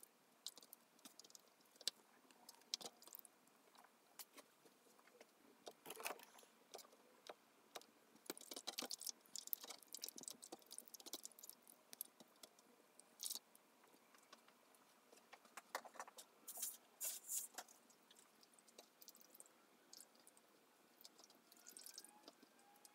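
Faint, scattered wet squelches, small splashes and clicks of wet cyanotype prints being slid, pressed and lifted in a shallow tray of water during the wash.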